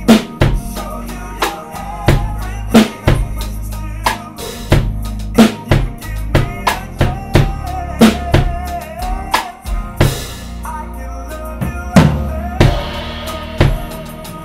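Acoustic drum kit played along to a recorded slow pop ballad: a steady kick and snare beat over the song's melody, with cymbal crashes about ten seconds in and again near the end.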